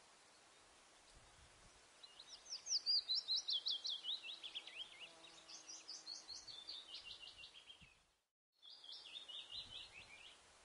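A songbird singing quick trills of sharp chirps, each sweeping down in pitch, in phrases that start about two seconds in. A short dead silence near the end is followed by one more trill, over a faint steady hiss.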